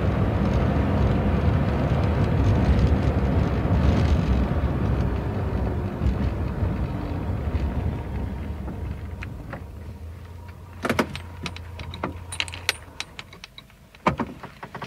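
Police car cabin interior as the car slows to a stop: road and engine noise fades over several seconds, then the engine idles briefly and cuts out. A run of sharp clicks and knocks inside the cabin comes near the end.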